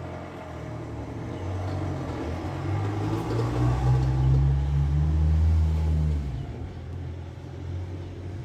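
A motor vehicle's engine running with a low rumble, loudest from about three and a half to six seconds in, then falling away.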